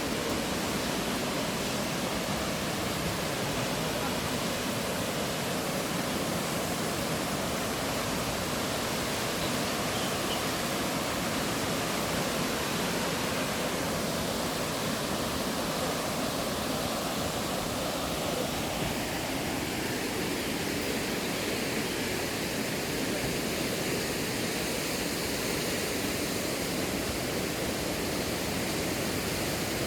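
Steady rush of flowing water from a mountain stream or waterfall.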